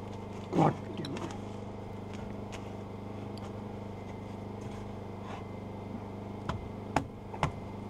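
Light scattered knocks and taps of a wooden brace being worked into place under a pickup's fuel tank, over a steady low hum, with a brief voice sound early on.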